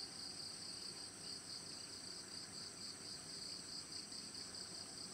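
Insects chirping in a steady, even pulse, about four pulses a second, high-pitched and continuous.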